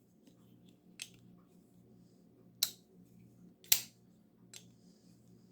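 Damned Designs Oni XL front-flipper pocket knife being flipped open and shut: four sharp clicks about a second apart as the blade snaps into place, the middle two the loudest.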